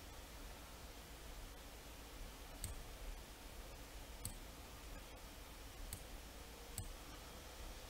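Four faint, sharp computer mouse button clicks, spaced a second or two apart, over a low steady background hiss.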